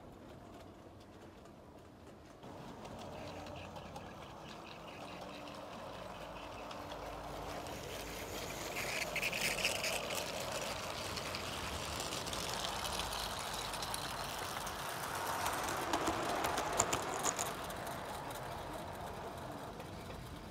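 O gauge model train's wheels rolling on metal garden track, growing louder as it comes close and then fading as it runs away. Twice it swells loudest, and the second time a quick run of clicks sounds about sixteen seconds in.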